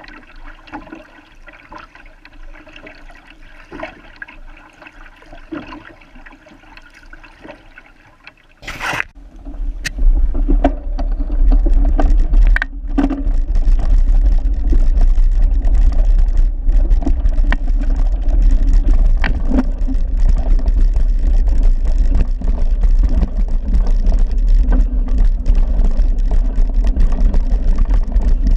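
Small waves lapping and trickling at the lake shore right by the camera. After a sharp knock about nine seconds in, a loud low rumble with many knocks and rattles takes over: a handlebar-mounted camera jolting along a bumpy dirt trail.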